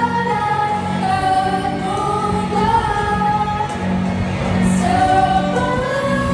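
Live student pop band: several girls singing the melody together into microphones, backed by violins, keyboard and electric guitars over a steady bass line.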